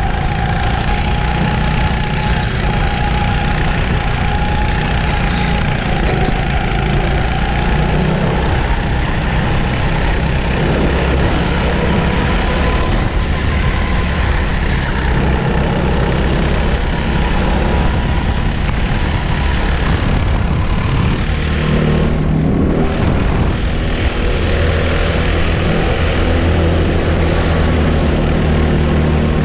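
Go-kart engines running hard during a race, heard from a camera mounted on the kart, with wind and rushing noise. The engine note shifts as the kart speeds up and slows through the corners, with other karts' engines close by.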